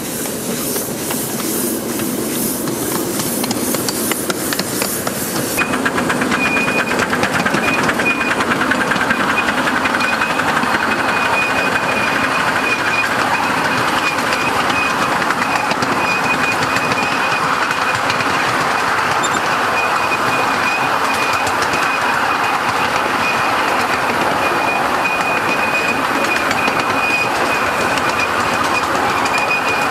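Miniature live-steam locomotive running on its track: first regular beats about two to three a second from close by the driving wheels and rods, then, from about six seconds in, a louder, quick rhythmic clatter of wheels on rail with a thin steady high tone over it.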